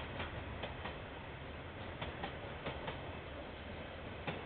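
Train wheels clicking over a rail joint in pairs, one bogie's two axles after another, as a slow train rolls past, over a steady low rumble.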